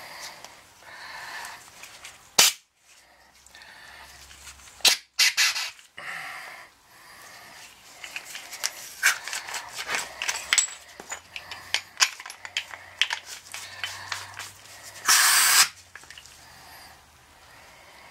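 Sharp blasts of gas from a hand-held CO2 blower, several short ones and a longer one of about half a second near the end, used to blow out oil pump parts. Between the blasts, small clicks and rattles of metal parts being handled.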